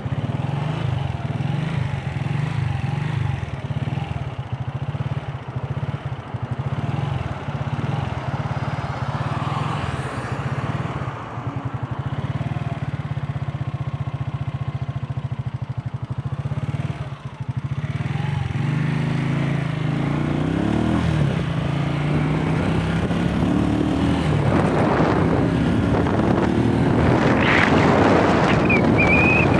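A vehicle engine close by, idling steadily with an even low pulse, then from a little past halfway revving up in rising pitch sweeps as it pulls away and gathers speed, getting louder towards the end.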